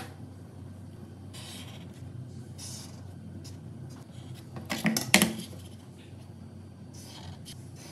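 Felt-tip whiteboard marker drawing short strokes on paper along a plastic ruler, a brief scratchy swipe at a time. About five seconds in, a cluster of sharp clicks as the plastic ruler is moved and set down on the table.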